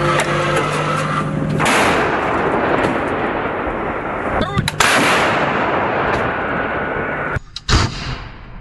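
A 2S7 Malka 203 mm self-propelled gun firing: the vehicle's engine hums steadily, then a heavy blast with a long rolling rumble sets in about two seconds in. Sharp, loud reports come about five seconds in and again near the end.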